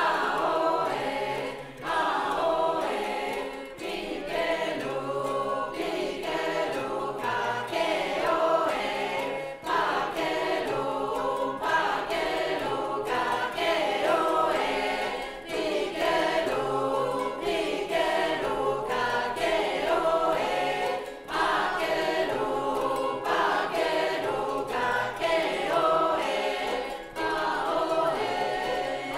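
Mixed choir of men's and women's voices singing a song in the Lani language.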